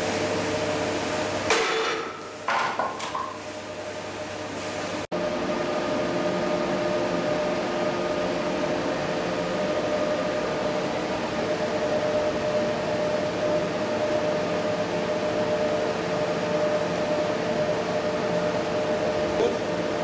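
Steady hum of workshop machinery with a few fixed tones, broken about a second and a half in by a sharp crack and some smaller knocks.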